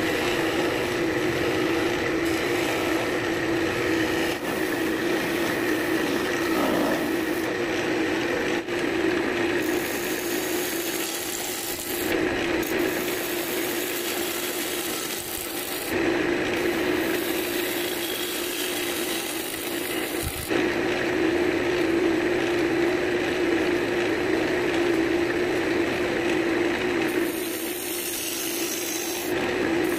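Wood lathe running with a steady hum while a hand-held turning tool cuts into a spinning piece of cherry wood. The scraping, hissing cut comes and goes in passes of a few seconds each.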